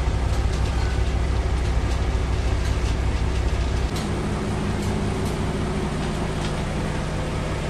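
A steady low mechanical hum with faint crackles from a pot of fish frying in oil; the hum drops and changes character about four seconds in.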